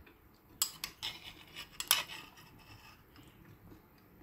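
Metal spoon clinking and scraping against a ceramic bowl of rice and pork: a handful of light clicks over about the first two seconds.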